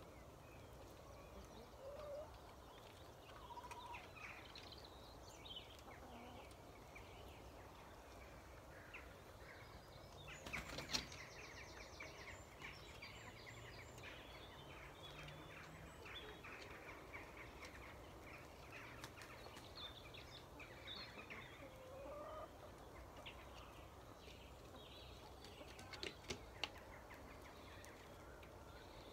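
Chickens clucking and calling faintly as they settle to roost at dusk. A brief louder flurry of wing flapping comes about eleven seconds in as a bird flies up to its perch, and a couple of sharper sounds follow near the end.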